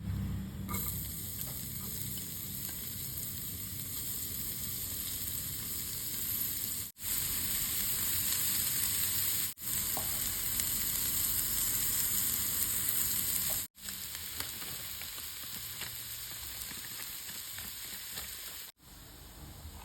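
Food sizzling steadily in hot oil in a pan, with the sound cutting out abruptly four times for a moment.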